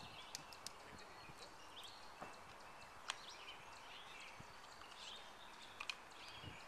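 Quiet outdoor ambience: faint bird chirps over a low hiss, with a few small sharp clicks.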